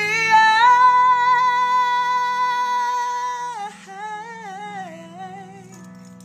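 Pop ballad playing over a soft low backing, a singer holding one long high note and then sliding into a short wavering phrase. The music drops in level about two-thirds of the way through.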